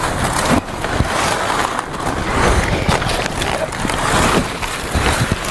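Dry banana leaves rustling and crackling, a continuous dense crinkling as the leaves are shifted.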